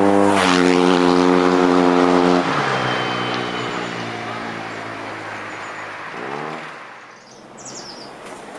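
An engine running at a steady pitch, then dropping lower and quieter about two and a half seconds in. It gives a brief rising rev around six seconds and fades away.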